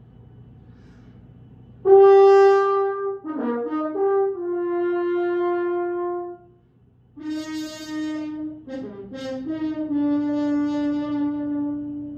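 Solo French horn playing two phrases: each opens on a held note, drops through a quick run of lower notes and settles on a long held note, with a short breath between the phrases about halfway through.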